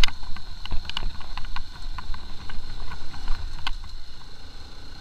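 Motorcycle riding over a rough gravel road: a steady low rumble of engine and wind with frequent short knocks and rattles as the bike jolts over loose stones, and a thin steady high whine.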